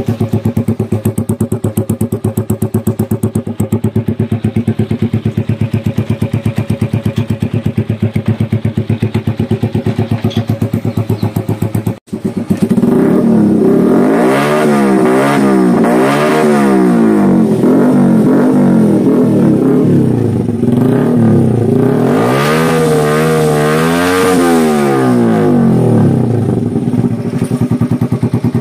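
Honda TMX 125 Alpha's single-cylinder four-stroke engine idling steadily through an aftermarket SC Project slip-on muffler with a 51mm elbow, with an even exhaust beat. About halfway through, the throttle is blipped several times in quick succession, then held for one longer rev of a couple of seconds before the engine drops back to idle near the end.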